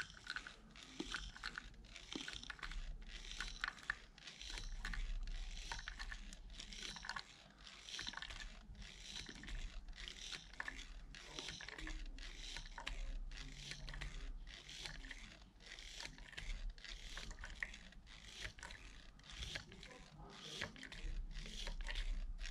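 Wacaco Nanopresso hand espresso maker being pumped by hand: a steady run of short scratchy piston strokes, roughly two a second. The pumping holds the brewing pressure while espresso is extracted into the cup.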